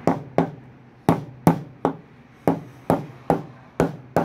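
Ball bearing being hammered into a washing machine's plastic tub bearing housing: about ten sharp knocks at a steady two to three a second. The blows land on the bearing's outer edge to drive it in square until it seats.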